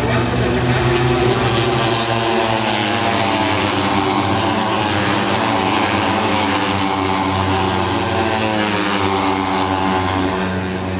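Steady engine drone with many pitched layers that slowly sag and then climb in pitch over several seconds.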